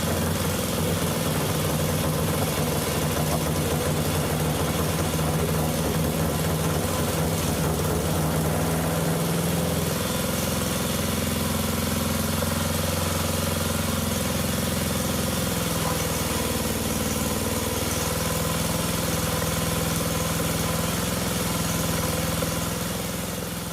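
1956 Lauson RSH single-cylinder four-stroke engine running steadily, its pitch shifting slightly about ten seconds in, then fading out near the end.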